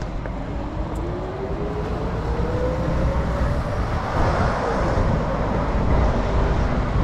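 A road vehicle going by, its engine note rising steadily over the first three seconds or so, over a constant low rumble.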